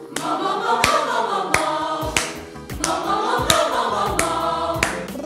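A vocal ensemble singing a warm-up exercise together, with piano accompaniment and sharp regular attacks through it.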